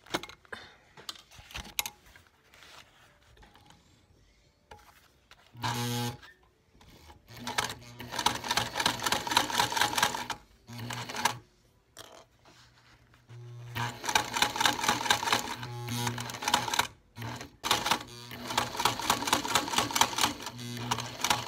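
Singer Spartan sewing machine stitching heavy vinyl, starting about five and a half seconds in. It runs in several bursts of a few seconds each, with short stops between them: a motor hum under a fast, even patter of needle strokes.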